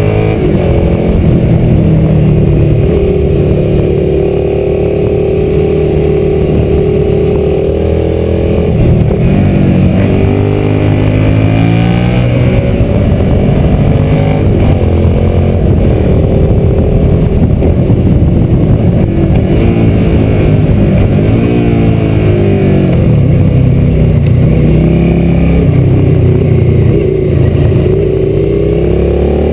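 Motorcycle engine running under way, heard from the bike itself. It holds a steady pitch for a few seconds, then its revs rise and fall several times as the rider accelerates and changes gear.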